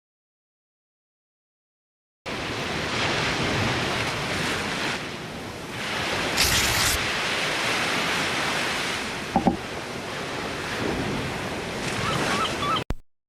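A steady rushing noise begins after about two seconds of dead silence and cuts off abruptly near the end. A couple of short faint blips come about halfway through.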